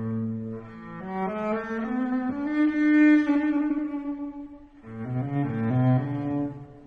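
Instrumental background music: a slow melody of held notes in low, bowed-string-like tones, briefly dropping away about four and a half seconds in.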